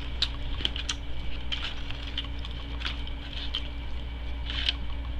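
Aluminium foil crinkling in short, irregular crackles as fingers pick through it.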